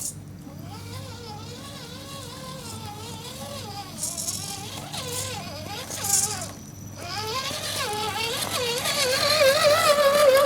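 Electric motor and gears of a radio-controlled rock crawler whining under throttle, the pitch wavering up and down as the truck crawls over uneven ground. It drops out briefly about two-thirds of the way through, then comes back louder and higher toward the end.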